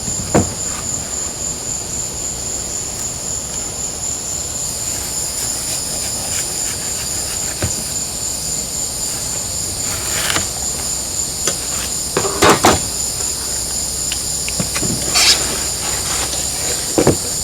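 Steady high-pitched chirring of crickets, with a few short scrapes and squeaks of a razor blade cutting through styrofoam, the loudest about halfway through and again near the end.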